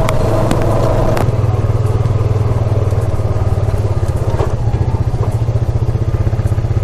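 ATV engine running steadily close to the microphone, its exhaust pulsing rapidly, with a few sharp knocks from the machine.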